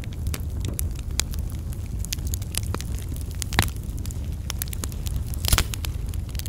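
Wood campfire crackling, with irregular sharp pops and two louder snaps, one midway and one near the end, over a steady low rumble.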